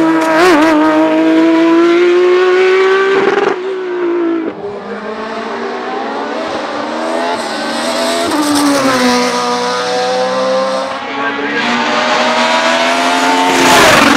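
Race car engine accelerating hard up a hillclimb course, its pitch climbing in each gear and dropping at upshifts about three and a half and eight and a half seconds in. It is loudest near the end as the car passes close.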